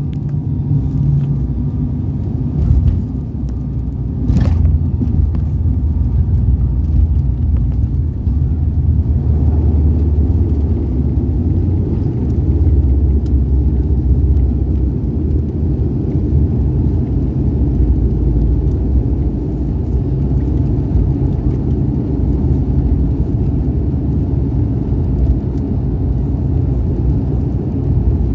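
Steady low rumble of an airliner's cabin as the plane rolls along the ground, growing louder after a short knock about four and a half seconds in.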